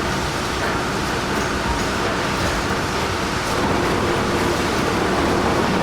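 Steady, heavy rumble of a large transport vehicle under way, continuous and even with no distinct knocks.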